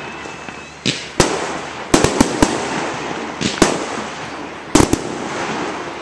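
Aerial fireworks bursting in a steady barrage: about ten sharp bangs, several in quick clusters, with crackling between them and a faint rising whistle in the first second.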